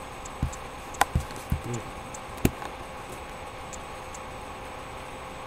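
A few light knocks and clicks, about five in the first two seconds and the loudest about two and a half seconds in, over a steady background hum; after that only the hum.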